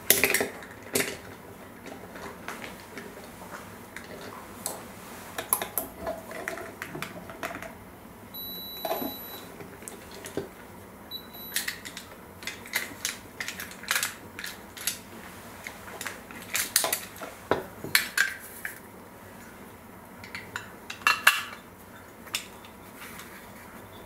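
Metal parts of a Schlage BE365 keypad deadbolt being handled and fitted back together: scattered clicks and clinks of metal on metal and on a wooden tabletop, irregular, with a few louder knocks.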